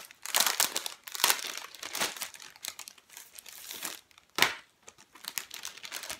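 Packaging crinkling and rustling in irregular bursts as it is handled and opened by hand, with one sharper, louder crackle about two-thirds of the way through.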